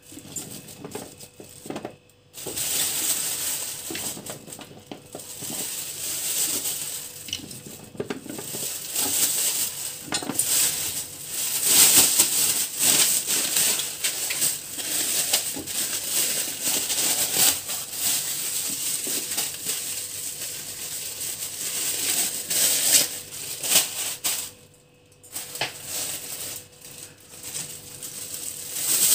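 A clear plastic bag crinkling and rustling as cubes of raw pumpkin are pushed into it by hand, with small clinks of a stainless-steel utensil against a plastic tray. The rustling stops briefly about two seconds in and again near the end.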